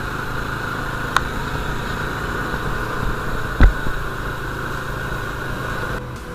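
Bajaj Dominar motorcycle's single-cylinder engine running steadily while cruising at low speed. A sharp click comes about a second in and a short, loud thump about three and a half seconds in. The sound changes abruptly near the end.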